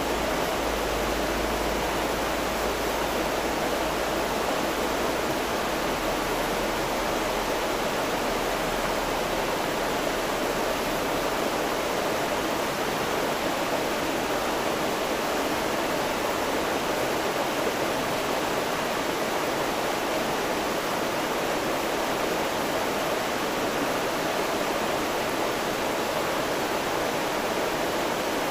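River water rushing steadily, an even wash of moving-water noise that does not change in level.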